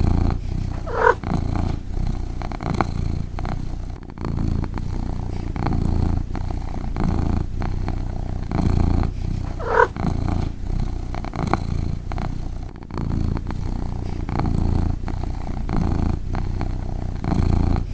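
A domestic cat snoring in its sleep: a steady, rhythmic low rasp with each breath. A short high squeak cuts into the snore twice, about a second in and again near ten seconds.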